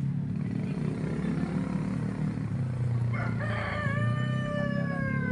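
A rooster crowing once, starting about three seconds in: one long call that holds its pitch and then falls away at the end. A steady low motor hum runs underneath.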